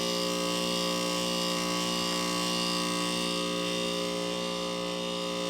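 Outdoor unit of a 1996 2-ton Heil 5000 heat pump running through a defrost cycle: a steady electrical buzzing hum that holds even throughout.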